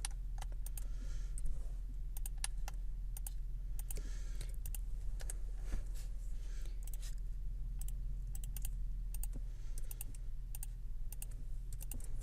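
Computer keyboard keys clicking at an irregular pace, a few strokes at a time, over a steady low electrical hum.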